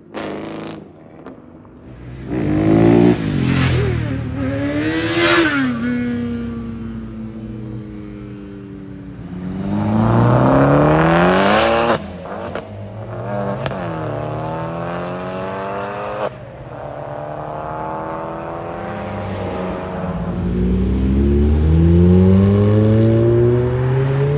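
Several cars accelerating hard one after another, in separate short runs. Each engine revs up in rising pitch, then drops sharply at an upshift and climbs again. Among them are a Chevrolet Camaro with a quad-tip exhaust and a Fiat Bravo with an aftermarket exhaust.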